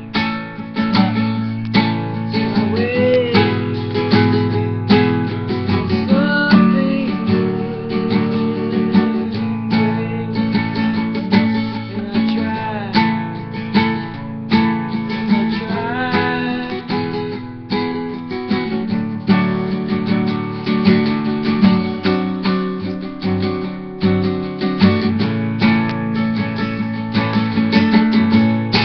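Nylon-string classical guitar strummed in a steady rhythm, full chords ringing without a break.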